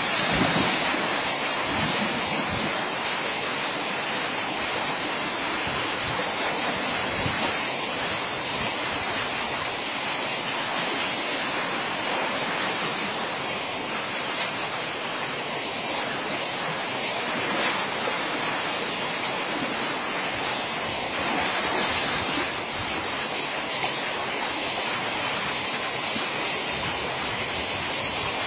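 Steady rush of a flowing stream, an even hiss with no distinct events.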